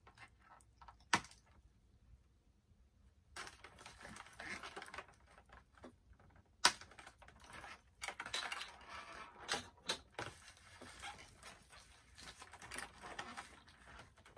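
Hands handling a doll's plastic and cardboard packaging: rustling and crinkling with scattered small clicks and taps, and two sharp clicks, one about a second in and one near the middle.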